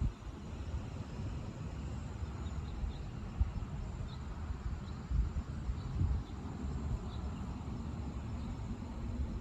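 Wind buffeting the microphone as a low, uneven rumble, with scattered faint short high chirps from wildlife around the pond.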